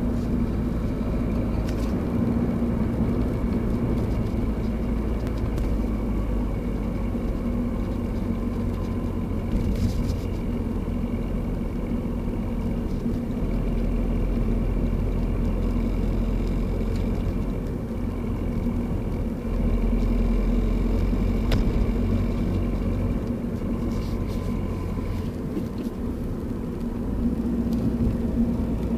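Peugeot 207 1.6 HDi four-cylinder turbodiesel car under way: a steady engine and road rumble with a faint high whine above it, swelling and dipping a little in level. The owner is recording this as a noise that appears on acceleration and deceleration.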